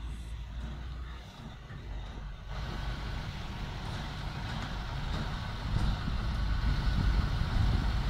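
Heavy recovery truck's diesel engine running under load to drive the boom and winch lifting an overturned semi-trailer. The engine grows louder about two and a half seconds in and again around six seconds.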